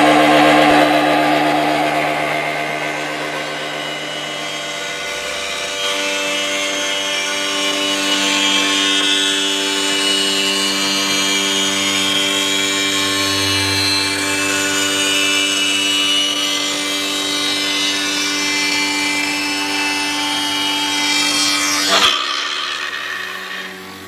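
Broom-handle rounding machine running, its feed rollers driving a wooden pole through spinning cutters that shave it round. It makes a steady whine with many tones. Near the end a sharp click marks an abrupt change to a quieter machine sound.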